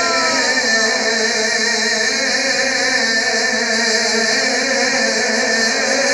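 A man's voice chanting verses in a melodic, drawn-out style into a microphone, with long held notes and slow pitch glides over a steady hiss.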